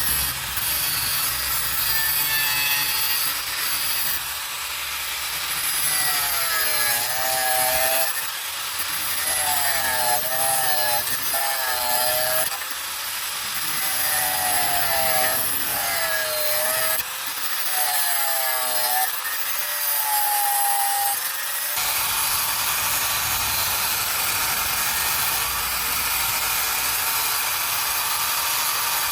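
A tool cutting or shaping wood, a continuous rasping rub with a whine that wavers up and down about once a second. About 22 seconds in it changes to a steadier hiss.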